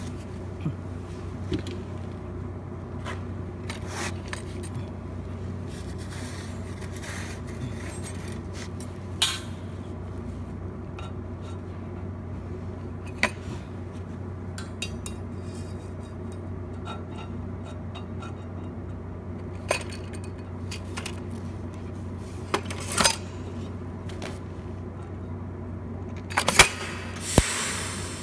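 Scattered light metallic clinks and taps as a TIG torch and steel filler rod are set against a flat steel bar, over a steady low hum. Near the end come a few louder knocks, and then the TIG arc strikes at 150 amps with a hissing crackle.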